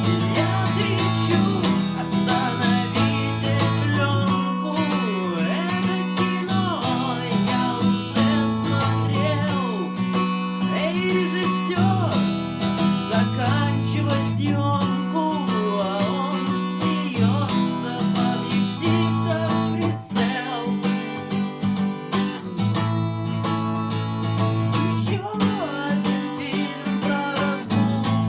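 Song accompaniment on strummed acoustic guitar, a steady strumming rhythm, with a wavering melody line above it.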